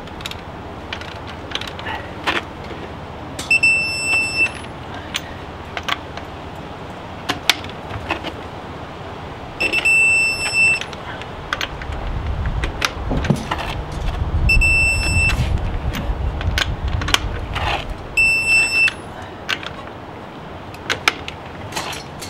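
Ratchet clicks as lug bolts are tightened with a digital torque wrench, and a steady electronic beep about a second long four times, several seconds apart, with a fifth starting right at the end: the tool's signal that each bolt has reached the 130 ft-lb setting.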